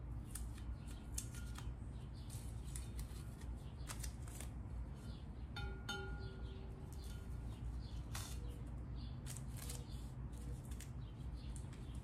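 Blue painter's tape being peeled off the lip of a painted alloy wheel, a run of faint crackling rips and crinkles, over a steady low hum.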